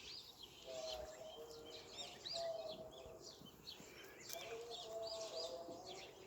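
Small birds chirping and twittering in a morning chorus: quick, high, arched chirps repeated over and over, faint, with some held lower-pitched tones underneath.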